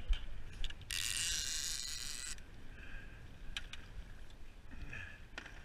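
Line-counter trolling reel whirring for about a second and a half, with scattered sharp clicks of its mechanism before and after, as a hooked fish is fought at the boat.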